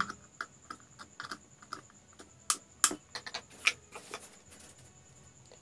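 Irregular light clicks and taps from a screwdriver working the screws of plastic switch and socket plates, with a few sharper clicks about two and a half to four seconds in.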